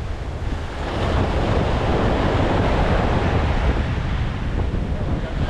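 Wind buffeting the microphone over surf washing in at the shoreline, a steady noisy rush with a heavy low rumble that swells a little about a second in.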